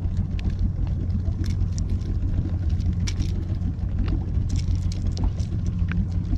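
Outboard motor running steadily at low speed, a constant low hum, with scattered small clicks and taps as a fish and lure are handled in the boat.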